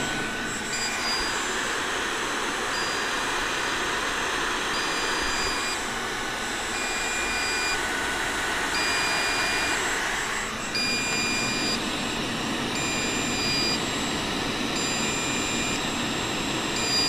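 HOBOT-298 window-cleaning robot running on the bench: its suction fan makes a steady whirring rush, with short high electronic beeps repeating about once a second. About ten seconds in the rush shifts lower in pitch.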